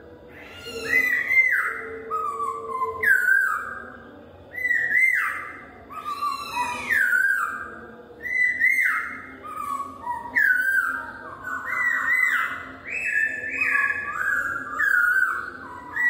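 Masked laughingthrush (poksay Hongkong) singing loudly: a run of clear whistled phrases, mostly falling slurs, one after another about every second, with phrases overlapping near the end.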